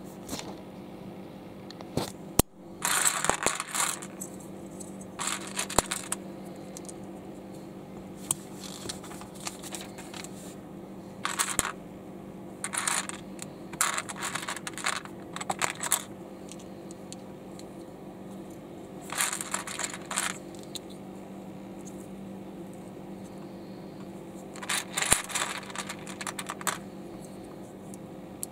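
Plastic LEGO bricks clicking and clattering as they are handled and pressed together, in scattered bursts with pauses between.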